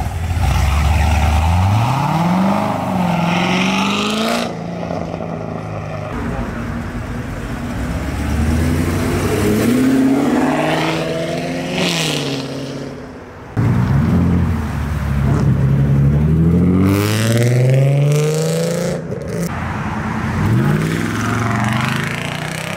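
Cars accelerating away one after another, starting with a Corvette, each engine revving up with its pitch climbing as it pulls off.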